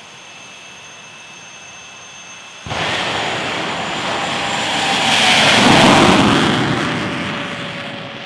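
Jet dragster's turbine engine whining steadily at the starting line, then about two and a half seconds in its afterburner lights with a sudden loud blast as the car launches. The noise swells as it passes and then fades down the track, with a tone dropping slightly in pitch.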